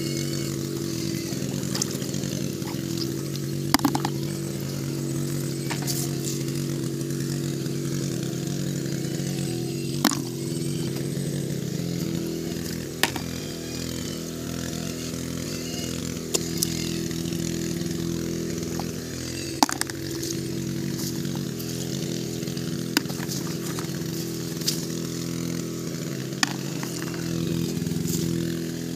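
A small engine running steadily with an even drone, and a scattering of sharp clicks and snaps on top.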